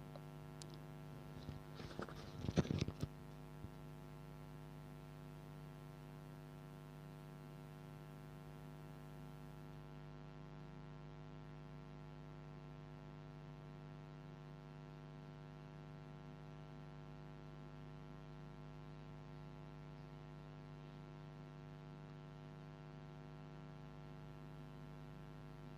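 Steady electrical mains hum, a low buzz with many even overtones. About two to three seconds in there is a brief cluster of louder clicks and knocks.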